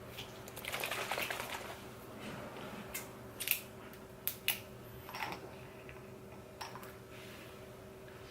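Faint room sound with a steady low hum, rustling about a second in, then a few light clicks and taps, as of small objects being handled.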